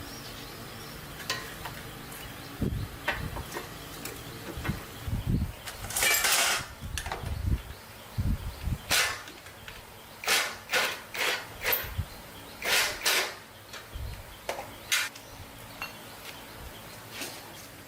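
Irregular knocks and clinks with short scraping or brushing strokes, the sounds of hand work on parts during a motorbike repair.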